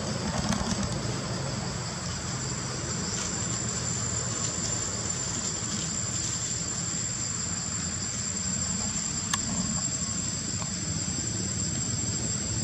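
Steady high-pitched drone of insects, one thin unbroken whine over a hiss, above a low background rumble. A single sharp click about nine seconds in.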